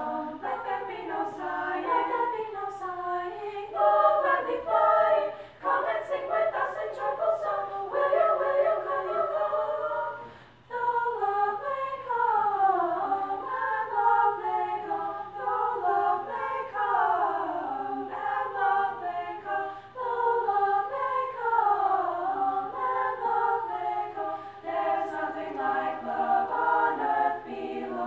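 Women's vocal ensemble singing a cappella in three-part harmony, with short gaps between phrases about five and ten seconds in.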